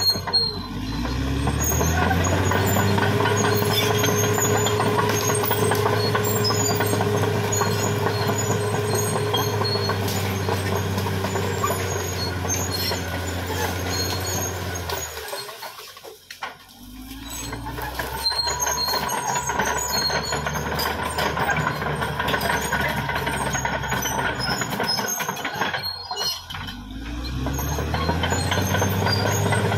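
Caterpillar D6R XL bulldozer's diesel engine running hard under load. It drops off briefly about halfway through and again near the end, each time climbing back up in pitch as it revs up again.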